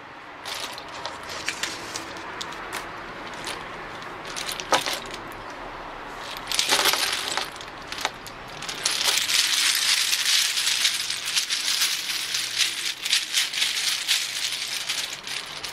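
Numbered lottery tokens clattering inside a cloth bag as it is shaken to mix them. It rattles in bursts, with a sharp flurry about halfway through and the hardest, busiest shaking in the second half.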